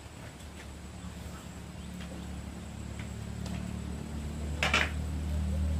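A motor running with a low steady hum that grows louder. A short loud rasp cuts in about three-quarters of the way through.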